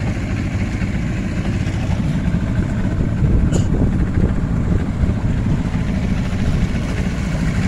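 Small boat's outboard motor running steadily while the boat is underway, a dense low drone with water and wind noise.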